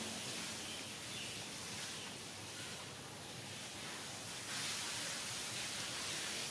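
Steady outdoor background hiss with no distinct events, a little louder and brighter from about two-thirds in.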